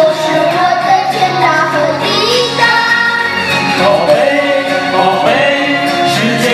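A group of men and children singing a pop song together into microphones, with instrumental accompaniment.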